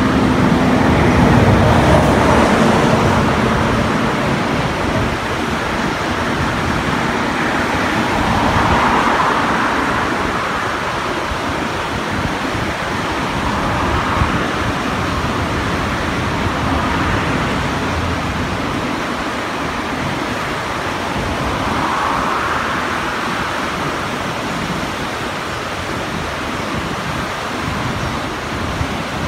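Steady rush of a rain-swollen, muddy river, with the noise of passing road traffic swelling and fading over it; a vehicle's hum is heard in the first few seconds.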